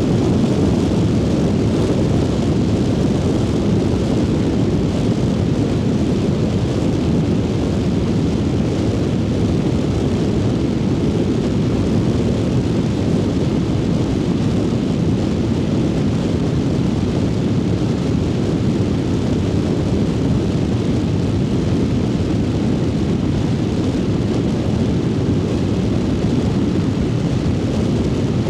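Triumph Speed Twin 900's parallel-twin engine running at a steady cruise while riding, heavily mixed with a deep wind rush. No shifts or sharp revving; the sound holds even throughout.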